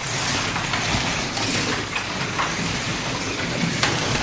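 Scalextric slot cars running on the track: a steady whirr of their small electric motors with the rolling rattle of the cars in the slots.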